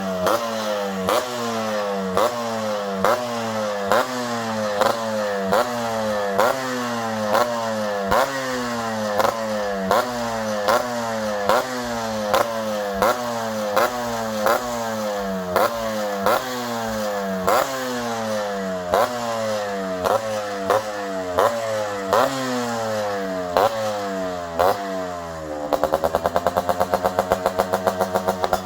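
Yamaha RX100 two-stroke single-cylinder engine being blipped over and over, each quick rise in revs dropping back with a sharp crack from the exhaust, a little over once a second. Near the end it is held at high revs for about three seconds.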